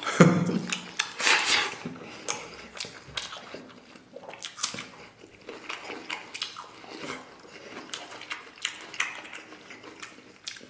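Close-up chewing of fatty pig intestine: irregular soft mouth clicks and smacks, loudest in the first two seconds.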